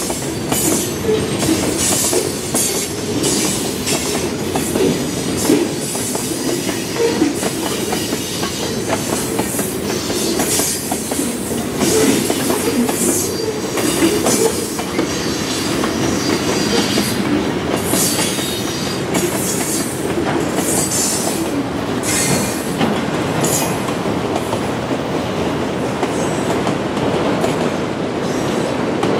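Freight train cars rolling past, steel wheels clicking over the rail joints in an uneven run, with some squeal from the wheels on the rails.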